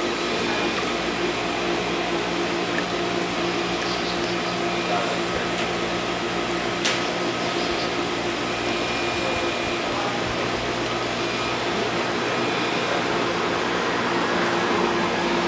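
Steady hum of tank machinery with a wash of moving water: the circulation pumps driving the current in a sea-turtle tank. A single sharp click about seven seconds in.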